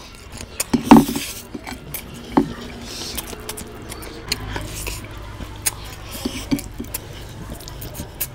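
Bare fingers mixing rice and curry on a ceramic plate, scraping and tapping against the plate in many small clicks, with a louder knock about a second in.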